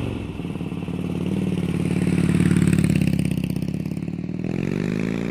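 2003 Honda VTX 1300's liquid-cooled V-twin engine running steadily, then revved so its pitch rises about four seconds in.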